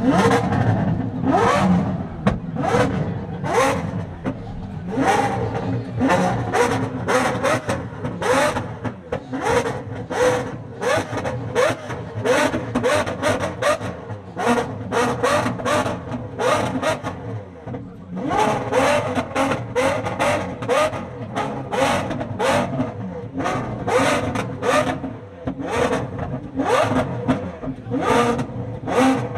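Lamborghini Aventador's V12 revved hard while standing still, in short quick blips, two or three a second, each a brief rising rev, with a short lull past the middle.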